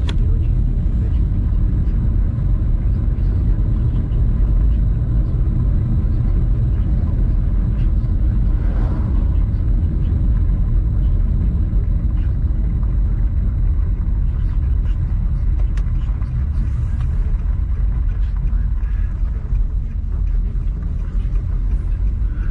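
Steady low rumble of a car driving, with no change in speed or pitch, and a brief rise in noise about nine seconds in.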